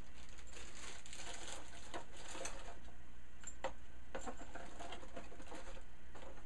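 Plastic packing bag crinkling as it is pulled off a microphone, then a few light knocks and clicks as the microphone is handled and set down on the desk.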